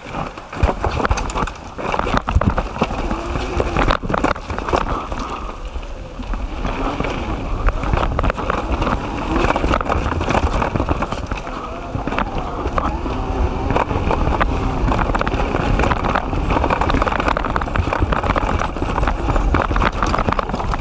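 Kona Stinky mountain bike riding fast down a dirt trail over tree roots: tyres rolling on dirt, with constant knocks and rattles as it hits the roots.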